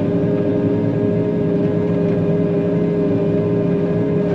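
John Deere 9500 combine running steadily as it drives along the road, a steady engine drone with a whine held at one pitch.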